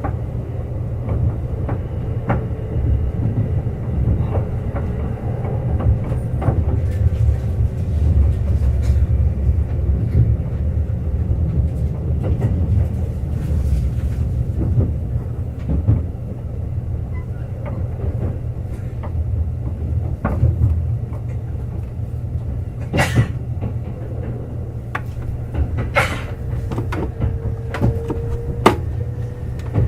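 Kintetsu 21000 series Urban Liner Plus electric train running at speed: a steady low rumble of wheels on rail with scattered sharp knocks and creaks, two of them loud about 23 and 26 seconds in. A faint motor whine shifts in pitch, rising near the end.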